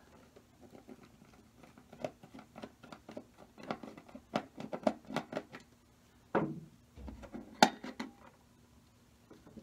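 Small plastic clicks and taps as AA batteries are fitted into the battery compartment of a plastic model engine kit's base, with a sharper click near the end.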